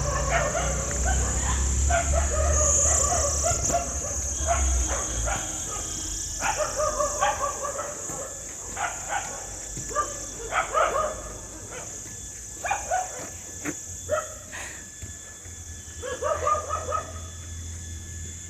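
A dog barking and yipping in short, repeated calls, some in quick runs of several.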